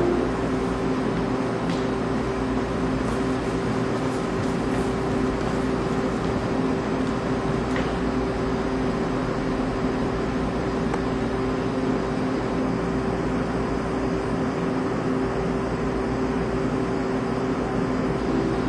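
A steady drone: an even hiss with one held hum note, unchanging in level, with no clear beat or melody.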